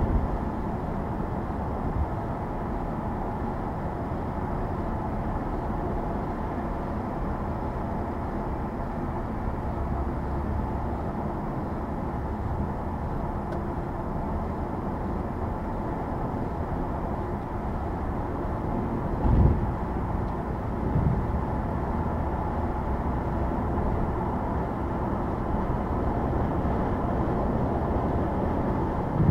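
Car driving at highway speed: steady tyre and road noise, with two short low thumps about two-thirds of the way through.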